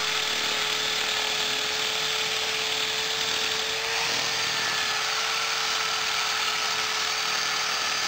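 Corded electric drill spinning lengths of nylon line as a makeshift grass trimmer, running steadily through the grass: a steady motor whine over a hiss, the pitch lifting slightly about halfway through.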